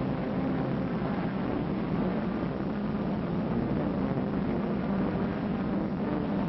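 Steady roar of a rocket launch, a dense unbroken rumble that holds at an even level.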